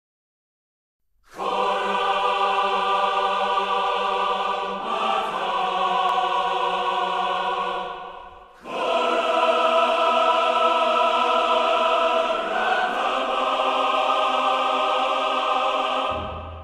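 Music: a choir singing long held chords, starting about a second in, in two long phrases with a short break about eight seconds in.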